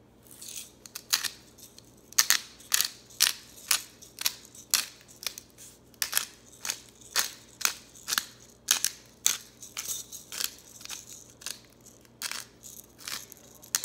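Disposable black pepper grinder bottle twisted by hand, its ceramic burr grinder top crunching out fresh cracked pepper in a quick run of short, gritty clicks, about three a second.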